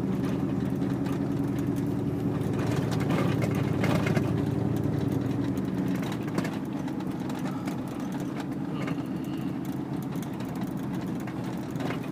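Chevrolet Silverado pickup's exhaust through hollowed-out glass pack mufflers, heard from inside the cab while driving slowly: a steady low drone that drops a little in level about halfway through.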